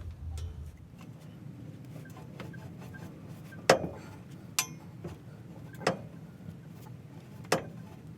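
Exhaust pipe cutter being worked around a steel exhaust pipe: a run of light ticks, with four loud, sharp metallic clicks a second or so apart in the second half.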